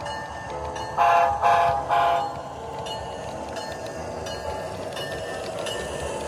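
Sound-equipped model diesel locomotives passing: the speaker-reproduced diesel horn sounds three short blasts about a second in, then the engine sound runs steadily with faint regular clicks.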